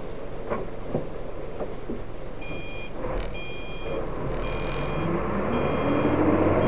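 Hino 500 dump truck's diesel engine running, heard from inside the cab, with its revs rising over the last couple of seconds. About two seconds in, an electronic beeper sounds four times, about once a second.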